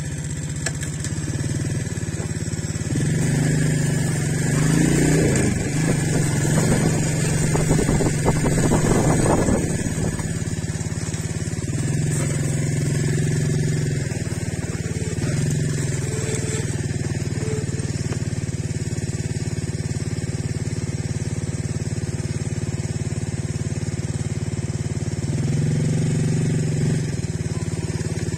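Motorcycle engine running steadily as it rides along a gravel road, the engine note swelling louder several times as the throttle opens, with a stretch of rougher noise early on.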